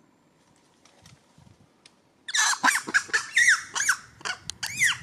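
Macaque giving a rapid string of high, arching squeals and screams that starts suddenly about two seconds in.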